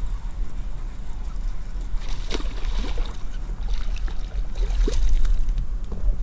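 A hooked bass splashing and thrashing at the surface beside a boat as it is reeled in, with water sloshing over a steady low rumble and a few brief knocks.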